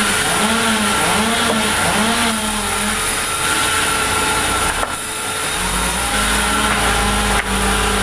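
Large vertical band saw running and cutting through a log, a loud steady whine with cutting hiss. For the first few seconds its pitch wavers up and down. It dips briefly about five seconds in as the cut board is taken off, then settles into a steadier, deeper note as the next cut starts.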